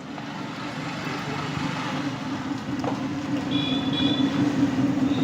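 A motor vehicle's engine running close by, its steady hum growing gradually louder, with a brief high beep-like tone about three and a half seconds in.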